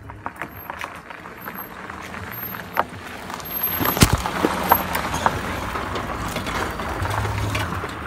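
A car rolling slowly over a gravel and dry-leaf track, passing right over a microphone at ground level: tyres crunch and crackle on gravel under a low engine hum. The sound swells to its loudest about halfway, with a sharp knock as the car is overhead.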